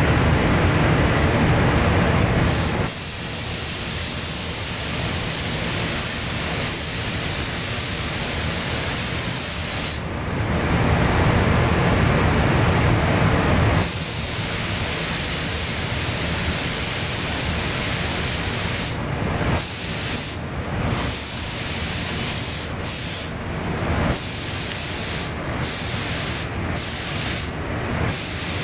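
Compressed-air paint spray gun hissing steadily over a constant rush of air. In the second half the hiss cuts out briefly several times as the trigger is let go between passes.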